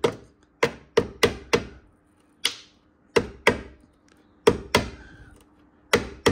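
Hammer blows knocking thick body filler off the rear corner panel of a Fiat 500: about ten sharp knocks at an uneven pace, many in quick pairs.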